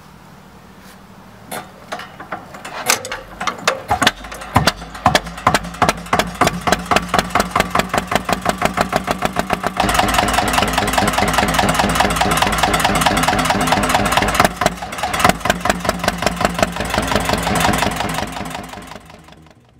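Vintage single-cylinder stationary engine starting: a few irregular bangs as it catches, then evenly spaced exhaust beats that quicken as it comes up to speed. It settles into a steady run and fades out near the end.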